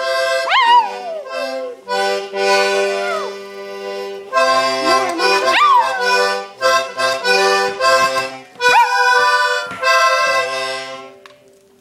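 Accordion playing held chords while a Maltese dog howls along in meow-like yowls, four times, each swooping up sharply and then sliding down in pitch. The accordion fades out near the end.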